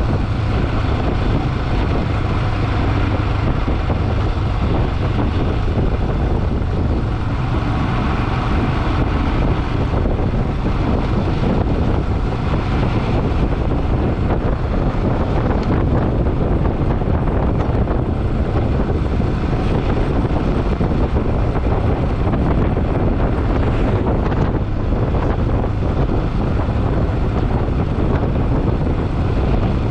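Steady wind noise buffeting the microphone of a moving motorcycle, with the bike's engine running underneath.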